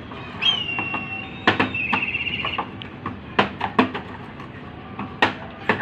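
Plastic drink bottles flipped and landing on a concrete floor: a string of sharp knocks, about six, some in quick pairs. A high whistle-like tone sounds twice in the first half.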